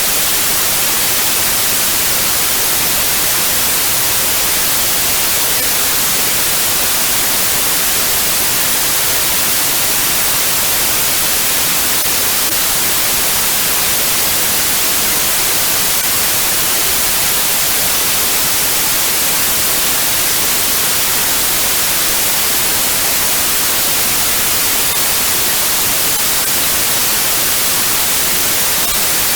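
Steady white noise: an even, unbroken hiss, brightest in the high frequencies, that never changes in level.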